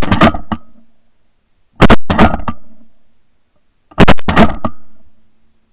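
Three shotgun shots about two seconds apart, each a loud blast followed by a short echo that dies away within a second.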